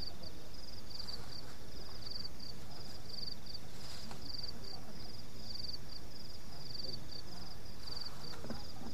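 Crickets chirping in a steady, even rhythm of short pulsed chirps, about two to three a second, over a low background hiss.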